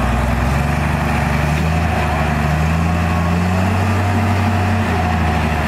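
Diesel engine of a Komatsu D58E crawler bulldozer running steadily at working speed, its pitch rising and falling slightly.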